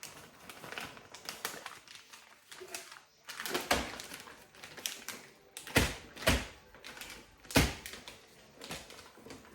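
Plastic vacuum-sealer bag crinkling as whole quail are packed into it, then the filled bag banged down on a hard surface about four times, which compacts the birds and pushes out some air to leave room at the top for sealing.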